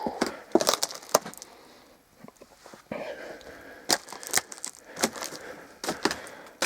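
Irregular sharp cracks and snaps of dry wood and debris underfoot, a cluster in the first second and several more spaced through the second half.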